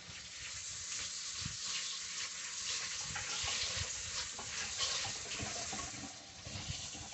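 Water running steadily from a tap into a sink, with a few light knocks as something is rinsed under it.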